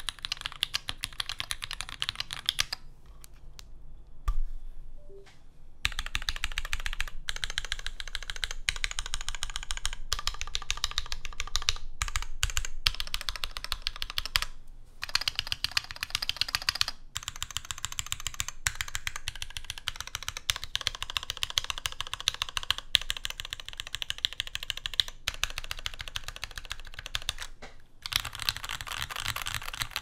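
Steady typing on a custom mechanical keyboard with lubed Cherry MX Orange tactile switches, a 3 mm aluminium sandwich-mounted plate and GMK keycaps: a fast, dense stream of key presses. The typing thins to a lull about three seconds in and picks back up about six seconds in.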